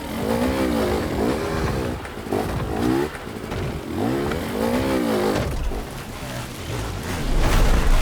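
Several enduro motorcycle engines revving hard, their pitch repeatedly rising and falling as the throttles are worked. A deep low rumble swells near the end and is the loudest part.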